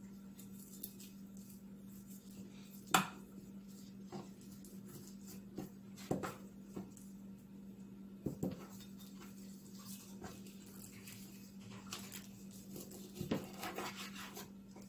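Kitchen knife clicking and tapping against a plastic cutting board while trimming raw chicken meat off the bone, with a sharper knock about three seconds in and a few more scattered through. A steady low hum sits underneath.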